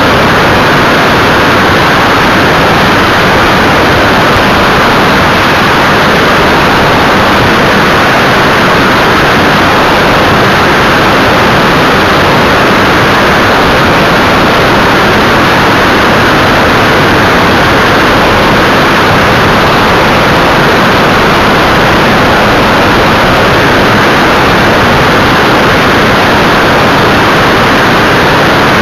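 Loud, steady rush of wind over a camera mounted on the tailplane of an Evektor EV-97 Eurostar light aircraft in flight, with the engine and propeller noise blended into it.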